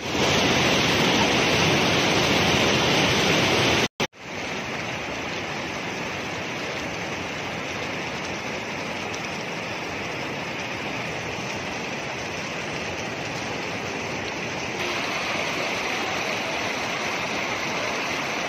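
Fast river water rushing over rocks in white-water rapids, a steady even rush. After a brief cut to silence about four seconds in, it goes on as a quieter rushing of a smaller stream, a little louder again near the end.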